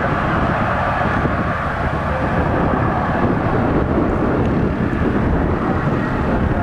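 Jet aircraft engines running at the runway: a loud, steady rush of jet noise that holds without a break.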